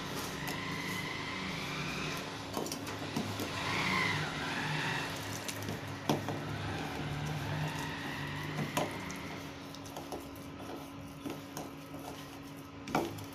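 Fingers working rice flour and grated coconut together in a steel bowl, with a few light clicks against the bowl, over a steady low background hum.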